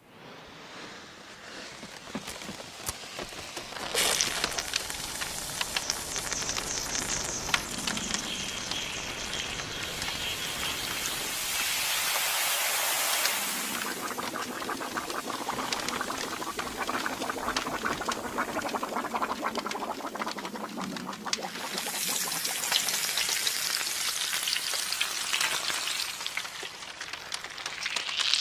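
Crackling and hissing of a match head igniting and burning, a dense sizzle full of small pops like frying. It jumps up suddenly about four seconds in and hisses loudest a little before the halfway point.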